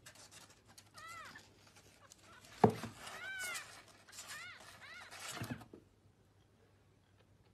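A newborn kitten mewing: a series of short, thin, high-pitched mews, each rising and falling, with one soft knock about a third of the way in.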